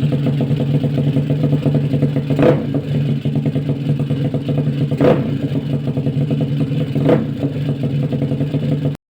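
Bored-up Honda Vario 110 scooter's single-cylinder engine idling steadily, with three quick throttle blips a couple of seconds apart. The sound cuts off abruptly near the end.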